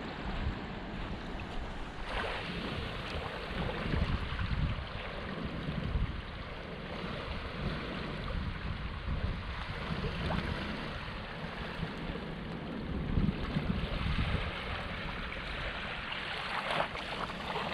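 Sea waves washing on a beach, a steady surf wash that swells now and then. Wind buffets the microphone with low, irregular rumbles.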